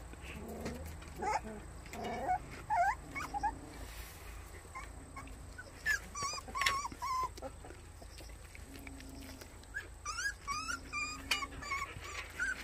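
Young white baekgu puppies whimpering: short, high, wavering whines, scattered at first and coming many in quick succession near the end.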